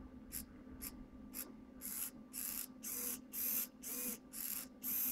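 Hobby RC servos, a Hitec HS-311 among them, whirring through a programmed sequence of quick moves, about two a second. The moves grow longer from about two seconds in, over a steady low hum.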